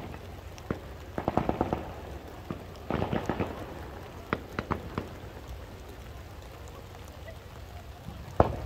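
Fireworks going off: two runs of rapid crackling from crackle stars, about a second in and about three seconds in, then a few single pops, and a louder bang near the end.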